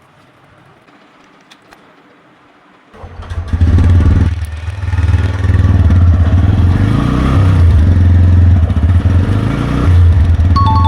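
Motorcycle engine starting up about three seconds in and running loudly, revved up and back down once midway.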